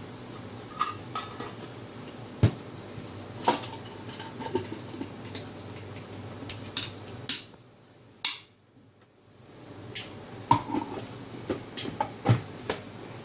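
A spoon and kitchen utensils clinking and knocking against a mixer grinder jar as sugar is spooned in and the jar is handled: a dozen or so separate sharp clinks spread out, with a short hush around the middle.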